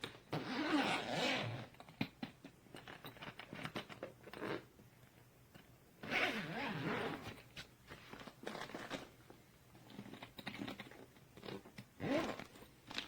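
Suitcase zipper pulled along twice in long rasping runs, with short clicks and knocks from handling the case in between.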